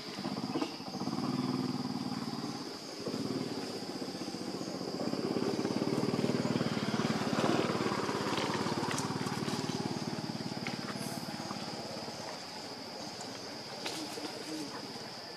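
A motor vehicle engine passing, growing louder to a peak about halfway and then fading away, over a steady high-pitched drone.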